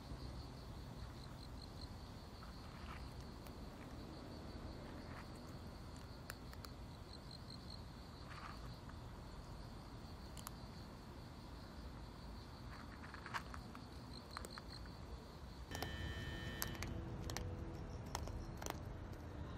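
Crickets chirping in a steady, fast-pulsing high trill, faint and constant, with a few scattered faint clicks. Near the end the chirping cuts off abruptly and a different, louder background with several sharp clicks takes over.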